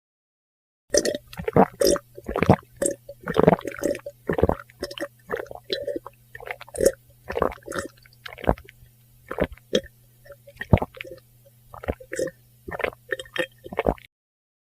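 A person drinking in a long run of gulps and swallows, roughly one or two a second. It starts about a second in and stops shortly before the end, over a faint steady low hum.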